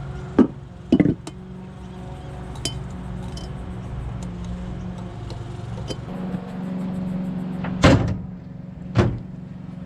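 A Mitsubishi Sigma Lancer's engine idling steadily on freshly fitted engine and gearbox mounts. Four sharp knocks sound over it, two near the start and two near the end.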